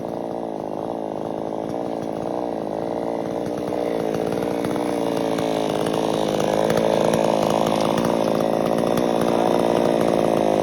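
Chainsaw engine running under load, its pitch wavering up and down as it works. It grows louder over the first several seconds, then holds steady.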